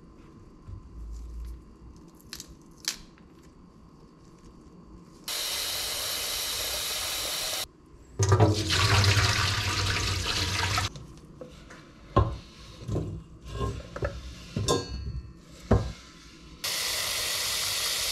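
A few faint snaps as cauliflower is broken into florets, then a kitchen tap running into a stainless steel pot of cut potatoes and cauliflower in the steel sink. The rinse water is swirled and tipped out with loud splashing. The pot knocks a few times against the sink before the tap runs again to fill it.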